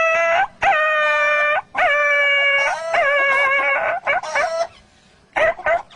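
A man imitating a dog yelping and howling in pain after being hit with a stick: four long, drawn-out cries, each starting with a quick upward yelp and then held, followed by a few shorter yelps, a pause, and quick yips near the end.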